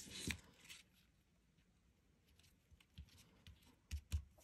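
Faint paper-crafting handling: a brief rustle as a glue dot is peeled from its roll, then a few soft thumps about three and four seconds in as hands press cardstock pieces onto a card lying on the table.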